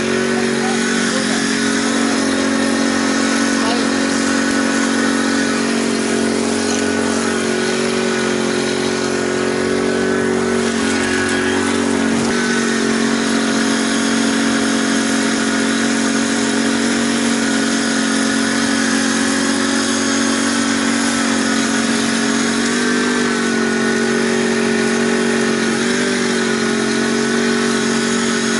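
Small engine of a backpack electrofishing unit running steadily at constant speed, generating the current for the fishing anode. Its drone dips slightly in pitch now and then.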